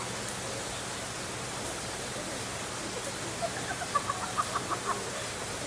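Steady rushing hiss like falling water, with a quick run of about eight short clucking bird calls over about a second and a half, starting about three and a half seconds in.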